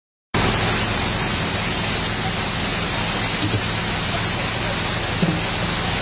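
Steady hiss of heavy typhoon rain and floodwater, with a backhoe's diesel engine running underneath as a low, steady hum.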